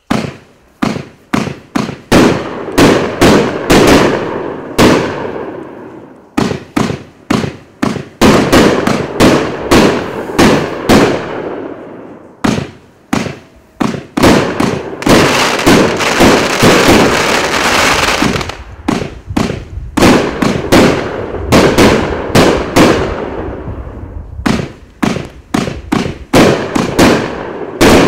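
A 36-shot, 1-inch consumer fireworks cake firing shot after shot, a rapid string of sharp bangs with short pauses between volleys and a denser crackling stretch in the middle.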